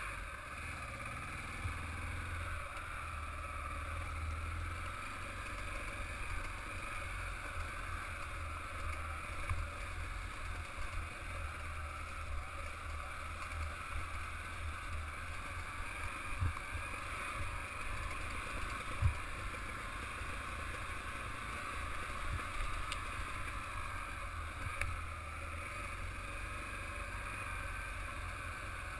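Motorcycle engine running steadily as the bike rides a rough gravel and rock track, with a constant low rumble and a few sharp knocks from the bumps.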